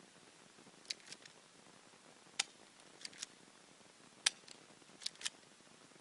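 Airsoft Glock 17 pistol firing: about eight sharp clicking shots, mostly in quick pairs.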